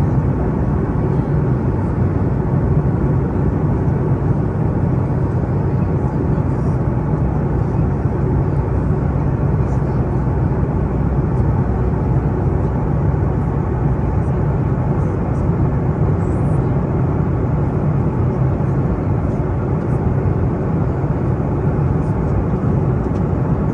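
Airplane engine noise: a steady low drone that holds the same level throughout.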